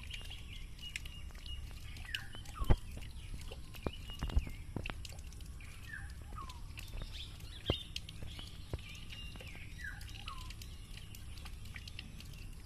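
Birds chirping, with a steady high twittering and a few short calls that drop in pitch. Several sharp clicks break in; the loudest comes about two and a half seconds in and another near four seconds.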